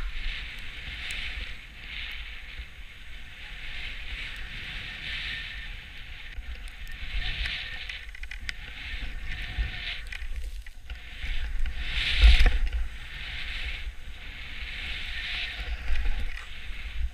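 Skis hissing through deep powder snow in a run of turns, a swishing swell with each turn and the loudest one about twelve seconds in. Under it, a steady low rumble of wind buffeting the body-worn camera's microphone.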